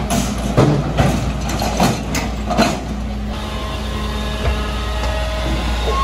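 Garbage truck emptying a street trash bin: the engine runs steadily while several knocks and clatters sound over the first three seconds, then the engine hum continues with a faint steady whine.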